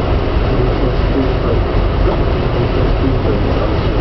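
Regional passenger train running at speed, heard from inside the carriage: a steady rumble of wheels on rail.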